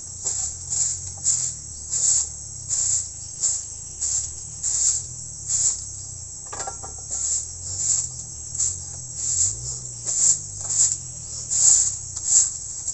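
Insects chirping in the forest: a steady series of short, high-pitched pulses, roughly three every two seconds.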